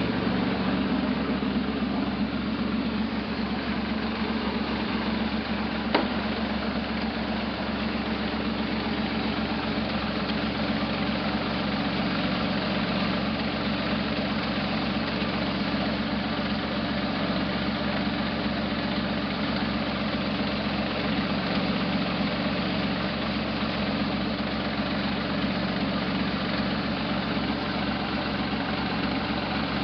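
Buick V6 engine of a 1968 Jeepster Commando idling steadily, with a misfire that the owner traces to a back cylinder. A single sharp click about six seconds in.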